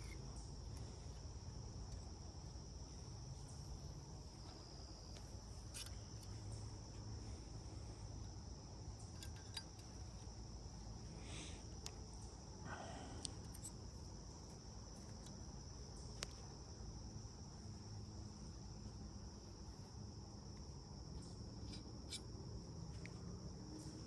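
Crickets chirping in a faint, steady high trill, with a few faint scattered clicks and scrapes.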